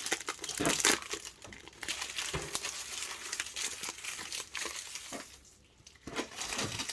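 Plastic-foil trading-card booster pack wrapper crinkling and rustling as it is handled and torn open, with many irregular crackles; it goes briefly quieter about five and a half seconds in.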